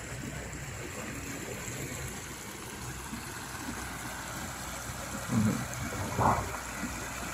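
Muddy water rushing and gurgling steadily through a freshly dug earthen drainage channel between two ponds. Two short, louder low bumps come near the end.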